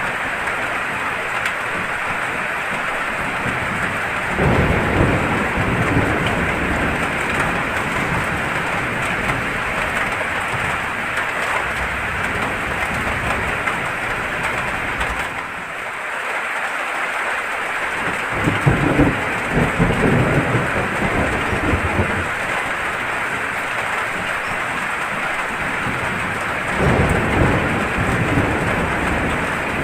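Steady heavy rain hissing, with low rolls of thunder rumbling in three times: about four seconds in, a little past the middle, and near the end.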